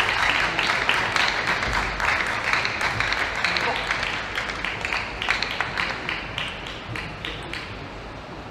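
Arena crowd applauding with mixed voices. The clapping is loudest at the start and dies away steadily over several seconds.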